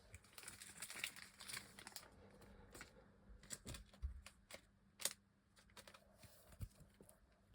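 Faint clicks and soft rustling of glossy trading cards being handled and slid through the hands, with a few sharper ticks.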